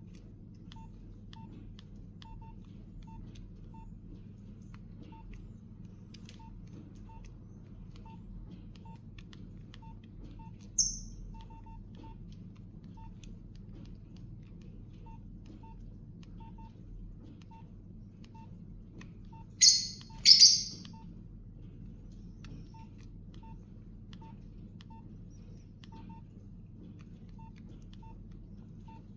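Nokia 8810 keypad tones: short single beeps, now and then two in quick succession, at irregular intervals as keys are pressed, over a steady low hum. A short high-pitched chirp comes about 11 seconds in, and two louder high chirps close together come about 20 seconds in.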